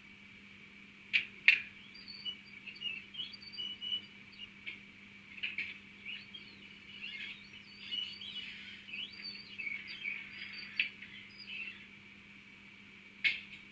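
Model locomotive sound decoder playing the ÖBB 1010 brake application and release sound through its tiny speaker. Two sharp clicks about a second in are followed by about ten seconds of high, chirping squeaks and hisses, with another click near the end.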